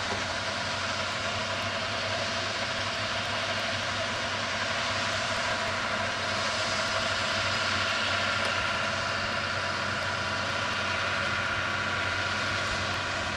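Steady engine running, a continuous hum with hiss and no breaks.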